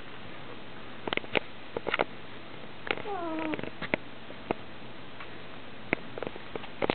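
Domestic cat giving one short meow about three seconds in, falling in pitch at the end, amid scattered sharp clicks and taps.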